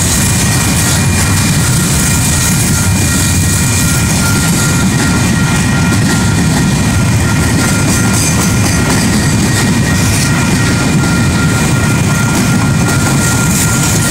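Train running steadily near the crossing: a continuous low rumble with a faint steady high whine over it.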